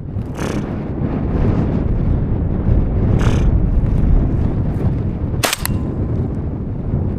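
Heavy wind rumble buffeting the microphone, with two brief swishes and a sharp crack about five and a half seconds in.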